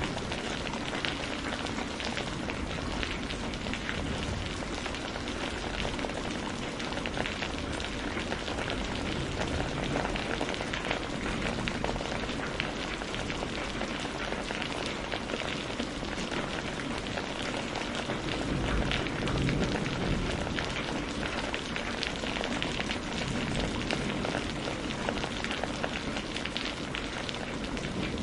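Steady rain falling, a dense patter of drops hitting a surface, swelling slightly about two-thirds of the way through.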